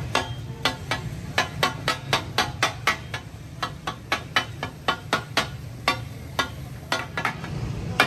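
Metal spatula striking a giant flat tawa griddle in quick, steady strokes, about three to four a second, as it chops and turns a heap of sliced onions, each strike a short ringing clack, over a low steady rumble.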